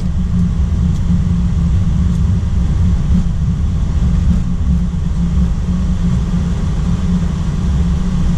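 Steady low rumble inside a heavy airliner's cockpit as it rolls along the ground after landing and turns onto a taxiway.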